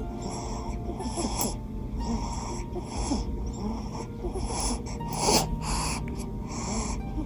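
Newborn baby snoring in short, quick breaths one after another, the loudest a little past five seconds in.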